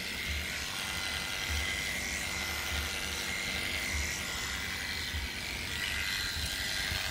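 Electric dog grooming clippers running steadily, a constant buzz as they cut through the curly coat on a dog's leg.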